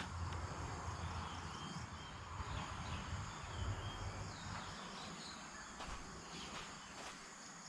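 Insects calling steadily, a thin high continuous tone over a noisy haze, with a few faint short chirps in the first half. A low rumble underneath fades out about two-thirds of the way in, and there is a single click at the very start.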